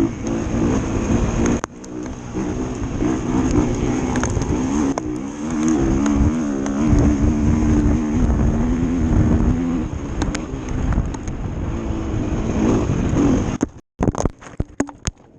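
Racing dirt bike engine revving up and down over rough ground with heavy rumble and wind noise. Near the end the engine sound breaks off abruptly, and a run of sharp knocks and dropouts follows as the bike crashes after the back tire hits a rock.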